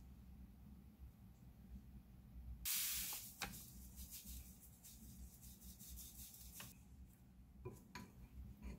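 Sugar sprinkled over buttered bread cubes in a glass bowl: a hissing pour about three seconds in, loudest at first, then thinning out over a few seconds. Near the end, a few light clicks of wooden chopsticks against the glass bowl as the cubes are tossed.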